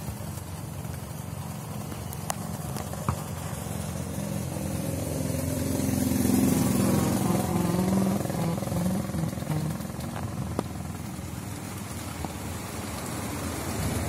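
Strong wind buffeting the microphone in a steady low rumble, while a motor vehicle passes on the road, swelling to its loudest about six to eight seconds in and then fading. A few sharp clicks sound along the way.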